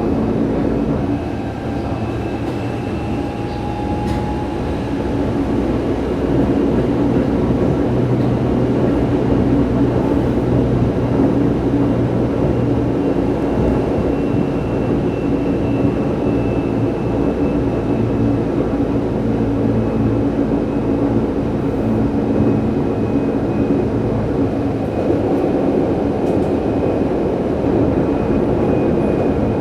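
Interior running noise of a Tokyo Metro 03 series subway car with its VVVF inverter drive: steady wheel-on-rail rumble, with a faint whine from the traction equipment. It is a little quieter about a second in, then builds and holds steady.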